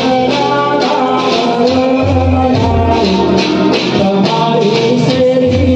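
Live Gujarati folk music, loud and steady: sustained melody notes and a bass line over a shaker-like percussion beat that repeats evenly, about two to three strokes a second.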